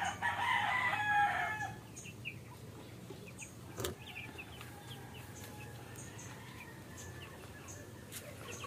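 A rooster crows once at the start, a wavering call about a second and a half long. Then come faint short chirps and soft clucking from chickens, with a single knock about four seconds in.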